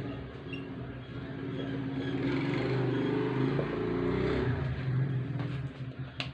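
A motor vehicle's engine running, growing louder through the middle and easing off again, like a vehicle passing by. There is a sharp click near the end.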